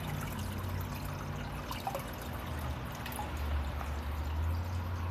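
Water trickling and dribbling, with small drips and splashes over a steady low hum.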